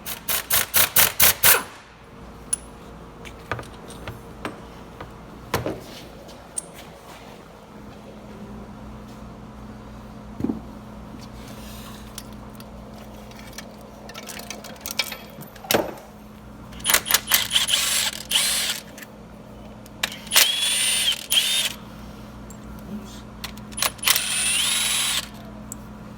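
A power tool working bolts off the engine during a top-end teardown. It opens with a quick run of about eight hammering pulses, then come scattered clicks and knocks of tools on metal, and three longer bursts of the tool running in the second half.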